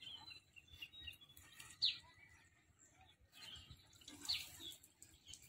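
Birds chirping: scattered short high calls, the clearest two sharp downward-sliding notes about two and four seconds in.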